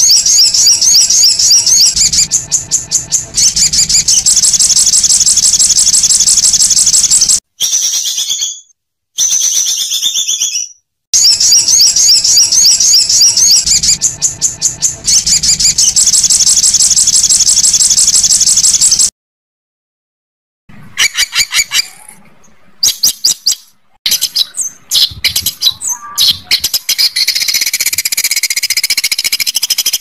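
Songbird singing in long, rough, fast high trills: two unbroken runs of about seven seconds each with a couple of short bursts between them, then, after a moment's silence, a string of shorter chirps and trills.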